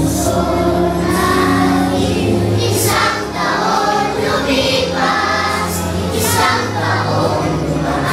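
Children's choir singing together over an instrumental backing with held bass notes.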